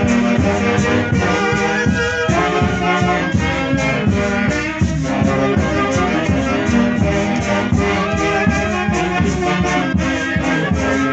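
A festival orchestra's horns playing a tune over a steady dance beat, with a rattle or shaker in the rhythm.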